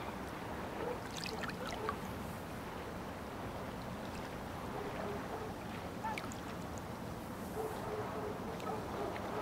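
Water lapping against the river's edge over a steady low background noise, with a few faint clicks.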